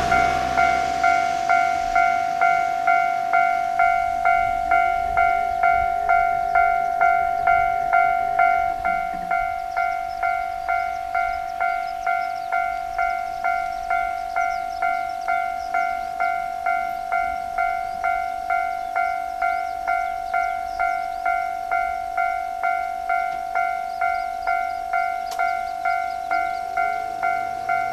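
Japanese railway level-crossing warning bell ringing steadily: an electronic clanging tone struck about twice a second, which warns that a train is approaching. About nine seconds in it drops a little in level.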